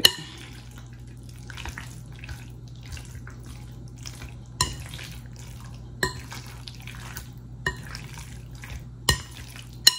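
A metal spoon stirring chicken in a thick wet marinade in a glass mixing bowl, a soft squelching and scraping, with the spoon clinking against the glass now and then.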